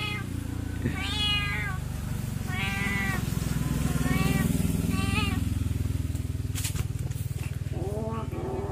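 Kittens meowing repeatedly: about four high-pitched meows in the first five seconds, then a lower, longer call near the end. A steady low rumble runs underneath, with a couple of sharp clicks about two-thirds of the way through.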